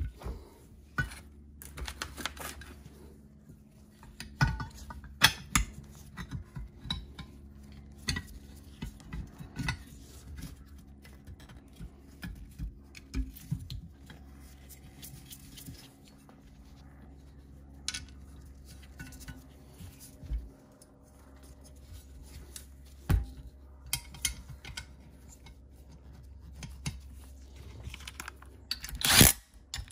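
Irregular clinks, clicks and knocks of hand tools and metal valve-block parts being handled and fitted during reassembly of a Mercedes ABC hydraulic valve block, with a sharper knock near the end, over a low steady hum.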